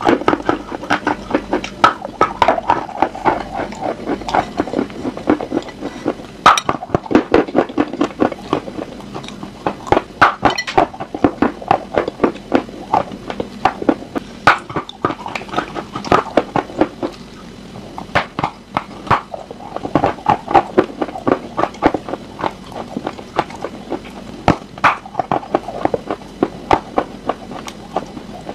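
Close-miked biting and chewing of a dry, crumbly bar: a fast, irregular run of sharp crunches, several a second, with short lulls between bites.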